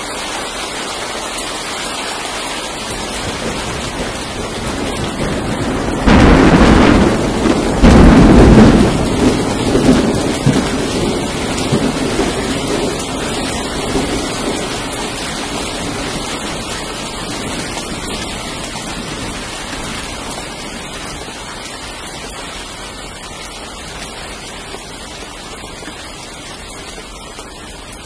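Thunder over steady rain: a sudden clap about six seconds in, a second, slightly louder crack about two seconds later, then rumbling that slowly dies away over the next ten seconds or so.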